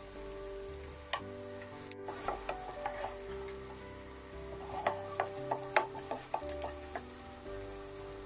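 Wooden spatula stirring sliced onions in a non-stick frying pan, with scattered scrapes and taps against the pan over a soft sizzle as the onions fry. Soft background music with sustained chords plays underneath.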